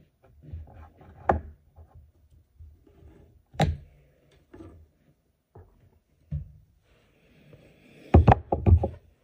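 Hand tools and handling on a Fender Champ amp chassis while the old power cord is cut out: single sharp clicks a couple of seconds apart, then a quick run of louder knocks near the end.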